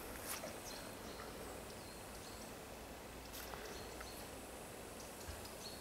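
Faint forest ambience: a low steady hiss with a few soft, high chirps scattered through it.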